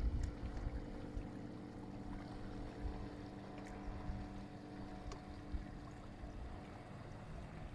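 Electric outboard motor, a converted Crescent 5 hp with a submerged FreeRCHobby MP12090 brushless motor driving the propeller directly, running at about 4.5 kW and heard across the water as a faint steady hum of several tones that fades a little as the boat pulls away.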